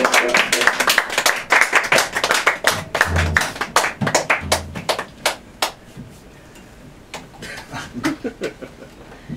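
A small audience applauding after a piece. The clapping is dense at first, then thins to a few scattered claps from about six seconds in.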